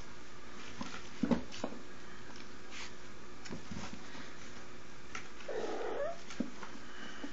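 Young kittens scuffling at a sisal scratching post: a few soft knocks and bumps, the loudest about a second in, and a short kitten cry, rising at its end, a little past halfway.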